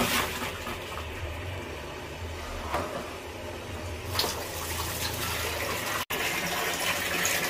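Water running from a low wall tap in a thin, weak stream into a plastic basin, filling it, with a momentary dropout about six seconds in.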